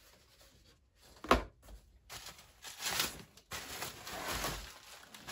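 Items being handled in a cardboard box: one sharp knock about a second in, then a few seconds of rustling and crinkling as cloth and plastic parts are moved around.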